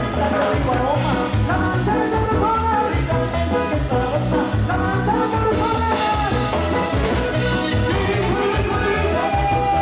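Latin dance music with a steady beat.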